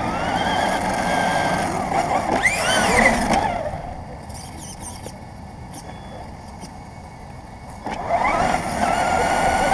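RC car's motor whining, its pitch rising and falling with the throttle over a steady rushing noise. It drops away for a few seconds in the middle, then whines up again near the end.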